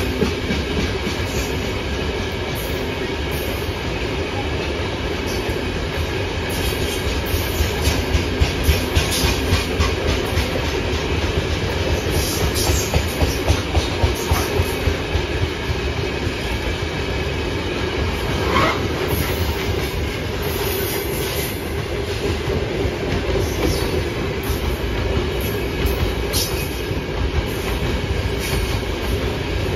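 Freight train of open gondola wagons rolling past with a steady rumble, the wheels clattering over rail joints in runs of quick, evenly spaced knocks.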